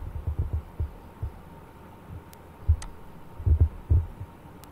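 Irregular low thumps on the microphone, several a second, over a faint steady hum, with a few faint sharp clicks about two and a half seconds in and near the end.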